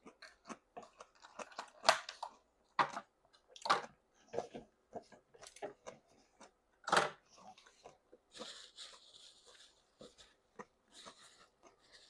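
A person chewing jajangmyeon noodles close to the microphone: a run of wet smacking and clicking mouth sounds, two of them louder, about two and seven seconds in. A short hiss of drawn-in air follows a little after eight seconds.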